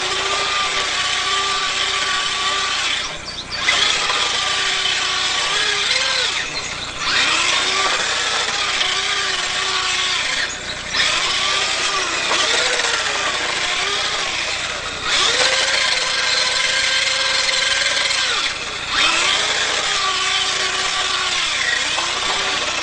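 Small 180-size brushed electric motor of a toy-grade RC drift car whining, its pitch rising and falling with the throttle, over a steady hiss. It cuts off briefly five times as the throttle is let off, then winds back up.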